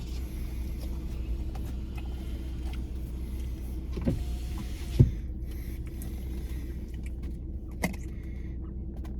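Steady low rumble with a few sharp knocks, the loudest about five seconds in.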